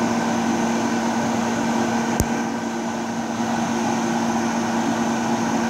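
A fan running with a steady hum and a constant low tone. A single sharp click sounds about two seconds in.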